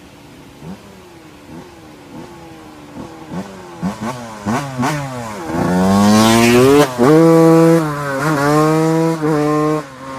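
Honda CR125 two-stroke motocross bike accelerating hard along the road, its engine pitch climbing and dropping again with each quick gear change. It grows loud about five and a half seconds in, holds high revs with brief dips at the shifts, and drops away sharply just before the end.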